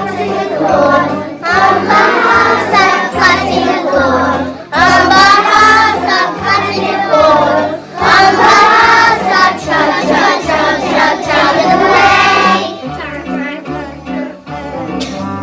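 Young children singing together as a group, with an instrumental backing playing a steady, repeating bass line underneath.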